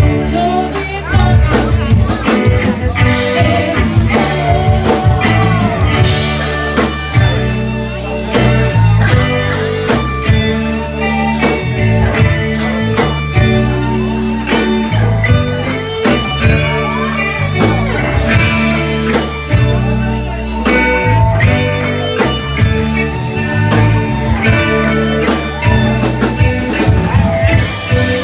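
Live blues band playing: electric guitars over bass and a drum kit, with bending lead guitar lines.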